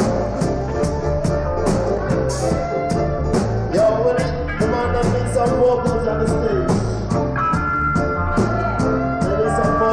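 Live reggae band playing an instrumental passage: a steady bass line and drums with a cymbal struck about twice a second, under long held melody notes.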